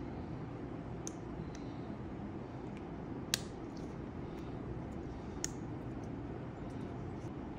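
A few small, sharp clicks and taps, the loudest about three and a half seconds in and another a couple of seconds later, over a steady low hum, as when small objects are being handled.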